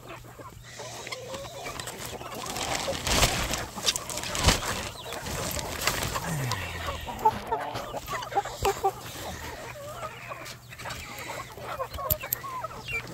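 A flock of chickens clucking, with a few sharp knocks and rattles a few seconds in from the wooden-framed chicken-wire pen door being handled.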